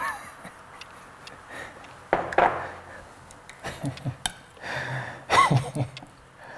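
Palette knife scooping and scraping thick pink printing ink in a small metal tin, with a few light clicks and knocks. About five and a half seconds in comes a short vocal sound.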